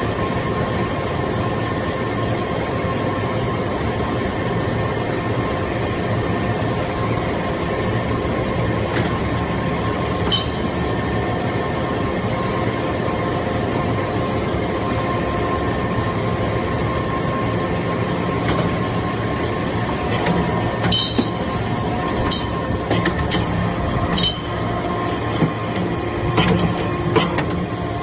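Hydraulic copper-chip briquetting press running, a steady machine hum with several steady tones. Sharp metallic clinks come now and then, more often in the last third.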